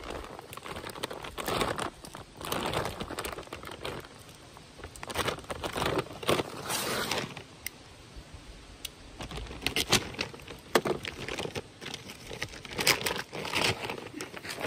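A plastic seed bag crinkling and rustling in irregular bursts as it is cut open and handled.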